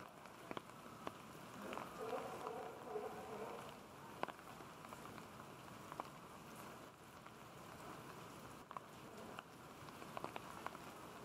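Steady rain, with scattered sharp drips of water falling throughout.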